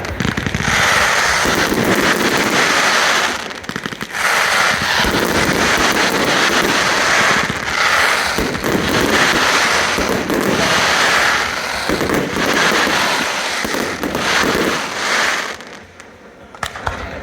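Aerial fireworks going off in a dense, rapid barrage of bangs and crackle, with a brief lull about three and a half seconds in, then dying down near the end.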